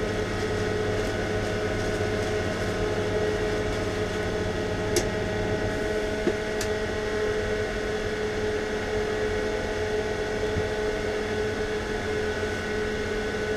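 Spray-booth extraction fan running with a steady hum and whine. Two light clicks come near the middle, and the low hum shifts about six seconds in.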